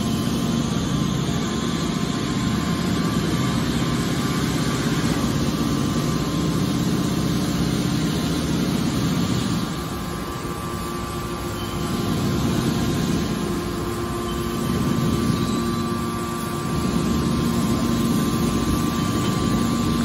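Hydraulic scrap-metal baler running under load: its power unit drones steadily with a thin whine while the rams compress scrap into a bale and push it out. The drone dips briefly twice.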